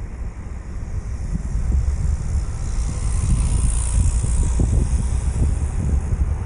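Wind buffeting the microphone in a gusting low rumble, over the noise of street traffic; a hiss swells about three to four seconds in.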